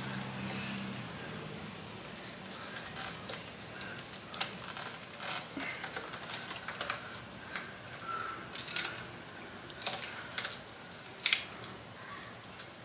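Scattered faint clicks, taps and rustles of a wiring harness and plastic parts being handled and pushed through a Honda Ruckus scooter's frame, with one sharper click about 11 seconds in.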